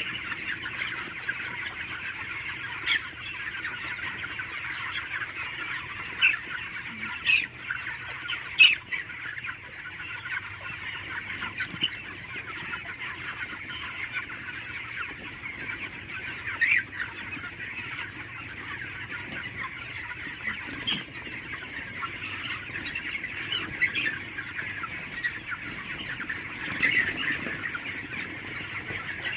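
A flock of desi chickens clucking: a steady, dense chatter with sharper, louder calls breaking out every few seconds.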